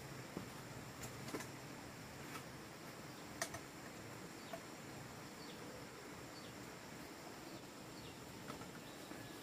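Faint rural background of insects and scattered bird chirps, with a few soft clicks and knocks from the cooking pot and fire being handled. The sharpest click comes about three and a half seconds in.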